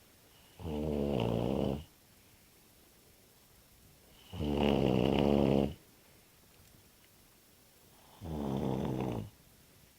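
A sleeping person snoring after drinking too much beer. Three long, rattling snores come about every four seconds, and the middle one is the loudest.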